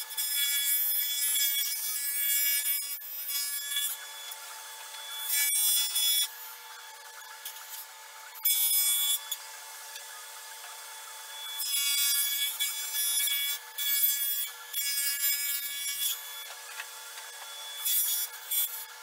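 Table saw running with a steady whine while it cuts rabbets into the ends of plywood panels. The blade is partly buried in a sacrificial fence. The saw gives repeated loud bursts of cutting noise each time a panel is pushed through, and runs on between cuts.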